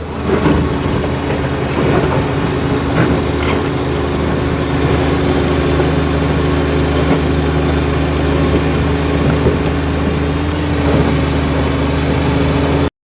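Komatsu D85 bulldozer's diesel engine running steadily with a low, even hum; the sound cuts off suddenly near the end.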